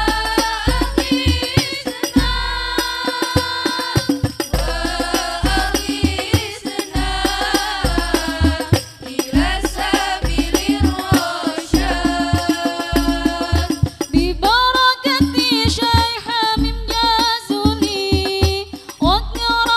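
Female voices singing a sya'ir, an Islamic devotional song, with a long, ornamented melody, over a hadrah ensemble of rebana frame drums: sharp hand slaps in a steady rhythm and deep bass-drum thumps.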